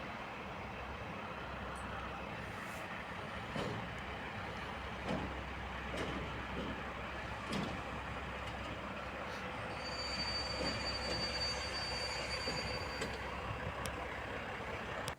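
A train running past on the track: a steady rumble and rush with a few knocks from the wheels, and a thin high-pitched wheel squeal lasting about three seconds in the second half. The sound cuts off suddenly at the end.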